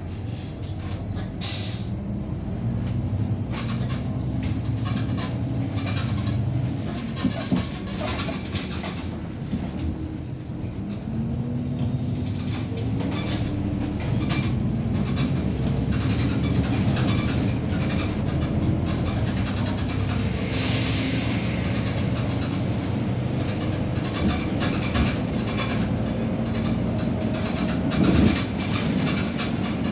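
Cabin sound of a city bus on the move: the engine runs steadily, its note rising and falling as the bus speeds up and slows, over constant rattling and clicking from the body and fittings. There is a short hiss about two-thirds of the way through, and a couple of knocks near the end.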